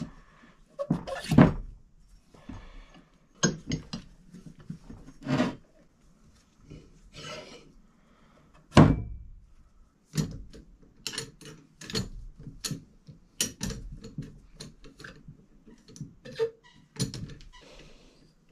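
Knocks and clicks of the bronze parts of a Baby Blake marine toilet pump being handled and fitted together, with one loud knock about nine seconds in and a quicker run of clicks in the second half.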